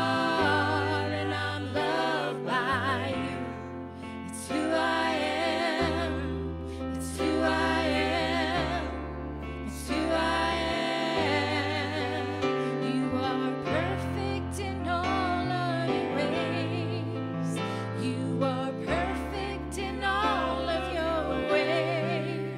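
Two women singing a gospel song into microphones, their voices wavering with vibrato, over instrumental accompaniment with held bass notes that change every second or two.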